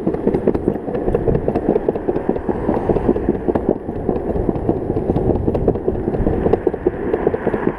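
Longboard wheels rolling fast over a concrete sidewalk: a steady rumble with many short clacks as the wheels cross the slab joints.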